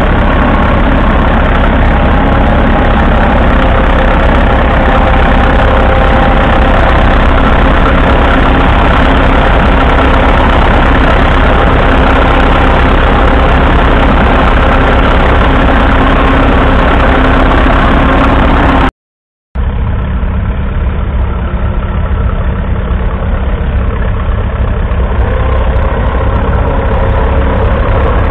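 1942 Fordson Model N's 4.4-litre four-cylinder petrol/TVO engine running steadily, heard up close. The sound breaks off briefly about two-thirds of the way through, then carries on a little quieter.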